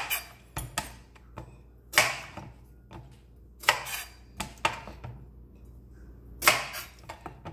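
Chef's knife cutting the ends off green bananas, the blade knocking down onto a wooden cutting board in a series of sharp, irregularly spaced chops.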